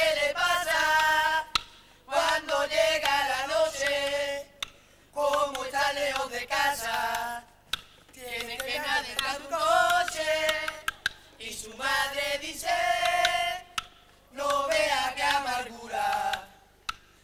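A youth carnival quartet's voices singing together in short phrases, each a couple of seconds long, with brief breaks between them.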